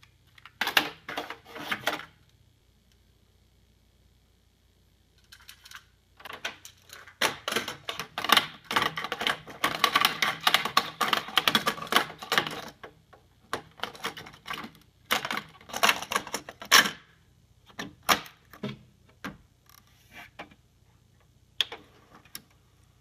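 Plastic clicks and clatter of a cassette tape being taken from its clear case and loaded into a JVC TD-W307 double cassette deck. The clicks come in bursts, densest in the middle, with a quiet pause of a few seconds near the start.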